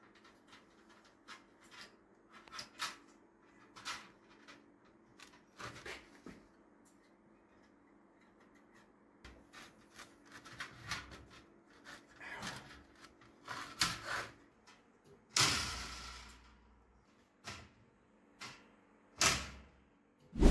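Metallic clicks and rattles of a weld-mesh cage trap's wire door and frame being handled and adjusted, with a longer, louder rattle about fifteen seconds in and a sharp knock near the end.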